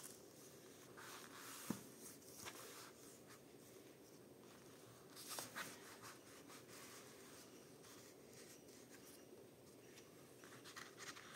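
Faint rustling and rubbing of paper against cardboard as hands press and smooth a freshly glued paper sheet flat onto a cereal-box journal page, with one small tap early on.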